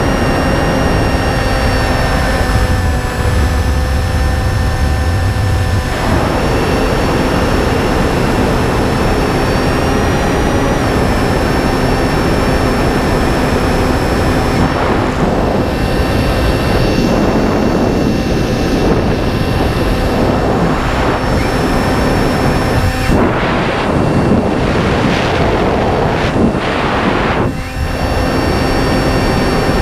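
Electric motor and pusher propeller of a Finwing Penguin FPV plane running steadily in flight, a steady whine with a slight change in pitch now and then. Wind rushes over it in repeated gusts through the second half.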